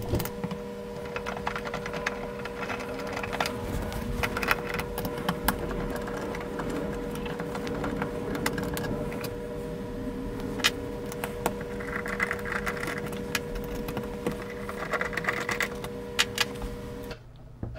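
Hex-key screws being undone from the metal back panel of an instrument case: many small sharp clicks and taps of the tool and loose screws, over a steady hum that cuts off suddenly near the end.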